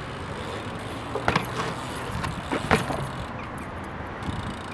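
BMX bike being ridden through flatland tricks on asphalt: a steady rolling noise with two sharp clanks, one about a second in and a louder one near the middle.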